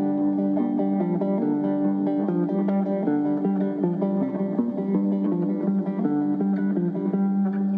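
Guitar music: plucked notes played over steadily held low notes.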